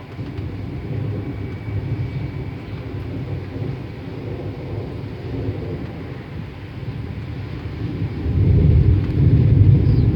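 Thunder rumbling low and rolling, swelling louder about eight seconds in.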